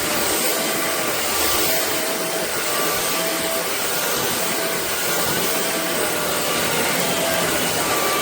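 Shark Clean & Empty cordless stick vacuum running steadily with an even rushing hiss of suction, and a faint whine that comes and goes about once a second.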